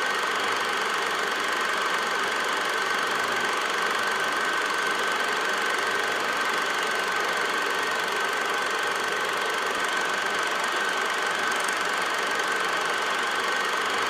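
An 8mm film projector running steadily, its mechanism making an even whir with a steady high whine over it.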